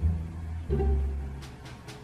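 Background music with deep notes, one at the start and another about two thirds of a second in, each fading away.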